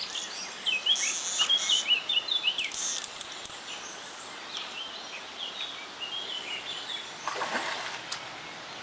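Small birds chirping, rapid runs of short high chirps over a steady outdoor hiss, with a few brief rustles in the first three seconds.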